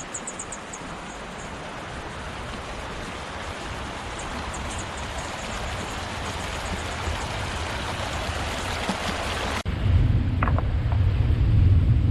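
Steady rush of flowing water, growing slowly louder, with a few short high chirps near the start. About nine and a half seconds in it cuts off abruptly to a loud low rumble.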